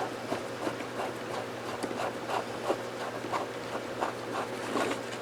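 Phillips screwdriver backing a wood screw out of a rifle's wooden buttstock, a run of light clicks about three a second.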